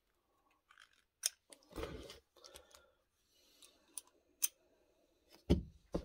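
Brass propane fittings and a regulator being handled, giving a few sharp metallic clicks, with a louder thump about five and a half seconds in as the parts are put down.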